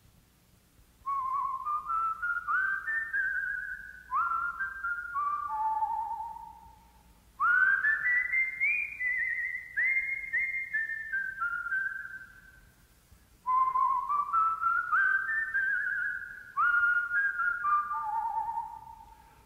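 A person whistling a tune in three phrases of about six seconds each, with short pauses between them. Each phrase climbs in quick steps and then falls back down.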